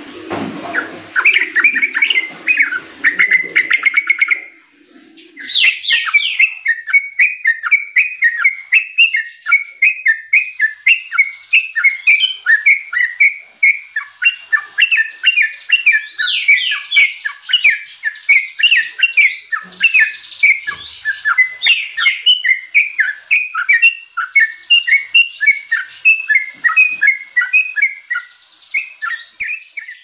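Yellow-vented bulbul (trucuk) singing a rapid, nearly unbroken string of short chirping notes, with a brief pause about four and a half seconds in.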